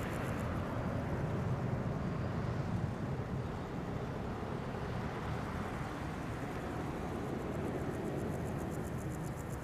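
Boeing 777-200ER airliner's twin jet engines after take-off: a steady low rumble that slowly fades as the aircraft climbs away.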